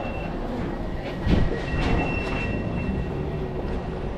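Train running at the station, a steady rumble with a thin high-pitched squeal of the wheels or brakes for about a second midway, and a low thump about a second in.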